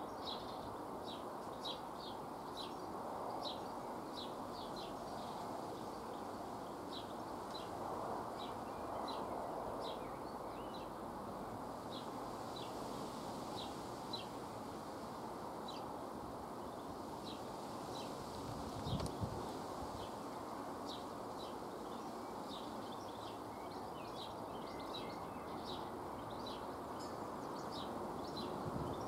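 A small bird chirping: short, high single chirps repeated about once or twice a second, over a steady background hum of outdoor noise. There is a brief low bump about two-thirds of the way through.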